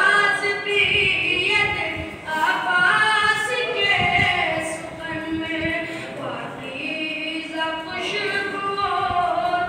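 A boy's voice chanting a devotional poem unaccompanied into a microphone, in long held, sung lines.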